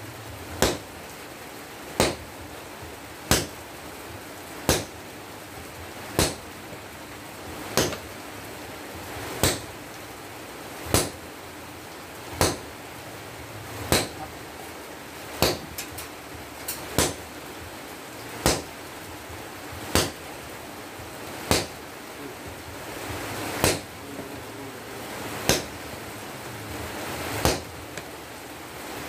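Sledgehammer blows on red-hot breaker-chisel steel on an anvil, hand forging: a single heavy strike about every one and a half seconds, each ringing briefly. A few lighter, quicker strikes come in between near the middle.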